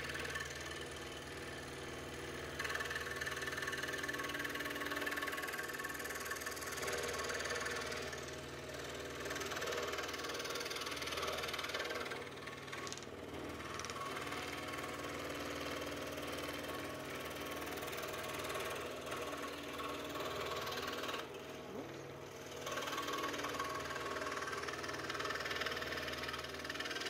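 Scroll saw running and cutting wood with a standard blade: a steady motor hum under the buzz of the reciprocating blade, heard turned down. The sound eases briefly a couple of times as the piece is turned and fed along the line.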